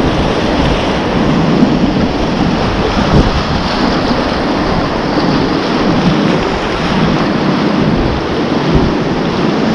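Whitewater rapids rushing loudly around a kayak, with water splashing over the bow and a low rumble of wind buffeting the microphone.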